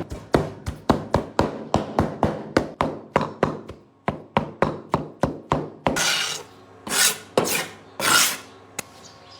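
A kitchen knife chopping food on a wooden cutting board, steady strokes about three or four a second. It stops about six seconds in, followed by three longer scraping swishes, the blade gathering the chopped food across the board.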